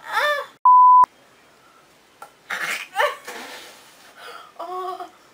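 A single loud, steady beep tone of about a third of a second, cut in sharply about a second in: a censor bleep. Around it, girls squeal, laugh and cough.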